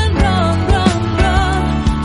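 Background pop song with a sung melody over a steady beat and bass.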